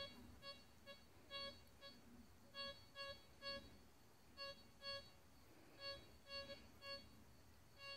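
Detech Relic Striker metal detector sounding faint, short, mid-pitched beeps, roughly two a second in uneven runs with short pauses, during manual ground balancing over mineralised clay soil. The beeps are the detector still squealing at the ground while the balance is being set.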